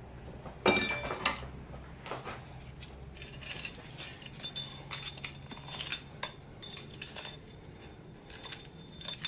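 Light metallic clinks and rattles of a small single-cylinder engine being reassembled by hand: the timing chain and a hand tool knocking against the aluminium cylinder and crankcase as the cylinder is worked down over the piston. A sharper knock comes just under a second in.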